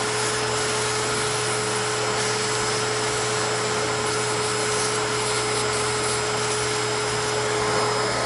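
Vacuum cleaner running steadily as its hose nozzle sucks aluminium chips out of a milled slot. It is switched off right at the end and starts to wind down.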